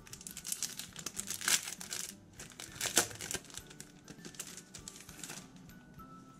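Packaging of a set of 3D stickers crinkling as it is handled, with louder crackles about one and a half and three seconds in, dying down after about five seconds.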